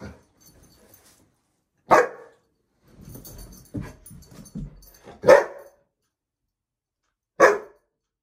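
Young golden retriever barking three times in short, sharp barks spread across a few seconds, with quieter low sounds in between.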